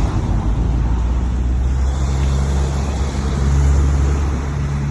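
Road traffic: a nearby motor vehicle's engine running with a steady low hum.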